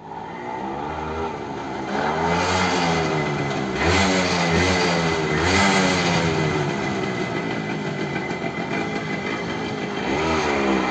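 Small two-stroke single-cylinder motorcycle engine of a TVS Suzuki Max 100 running and revved in several short blips, its pitch rising and falling each time, with a last rev near the end.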